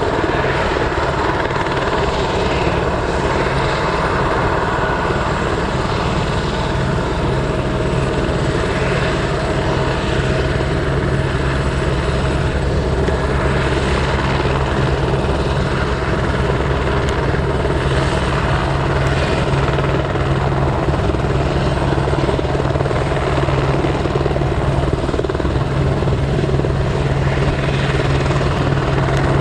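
Helicopter running steadily, a constant low turbine-and-rotor drone with a fast rotor chop.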